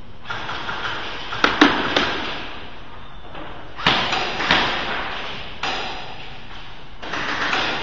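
A few sharp thuds and clicks, each with a short echo, over a rustling noise that comes and goes.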